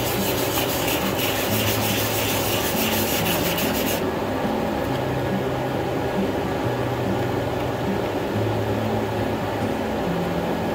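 A small laser-cut master piece being sanded down by hand on a sheet of sandpaper, rubbed back and forth in quick, continuous strokes. The rasp is bright and hissy for about the first four seconds, then turns duller.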